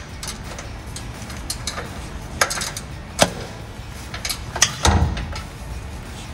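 Sharp metal clicks and knocks from a hand wrench on the loosened exhaust bolts and the steel exhaust pipe under the truck, with a short rattle partway through and a heavier clunk near the end as the freed pipe shifts.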